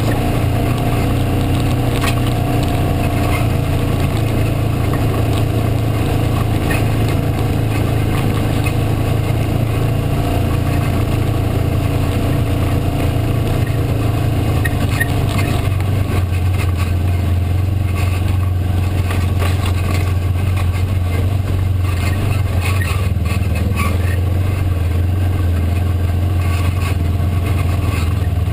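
Side-by-side UTV engine running steadily under way, a loud, even low drone heard from inside the cab, with occasional short clicks and rattles from driving over the rocky trail.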